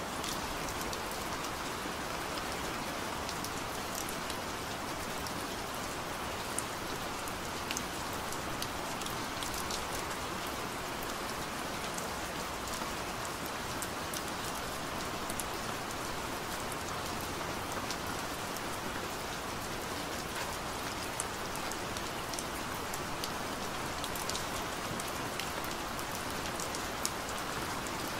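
Steady rain falling, a continuous hiss with many small scattered drop ticks.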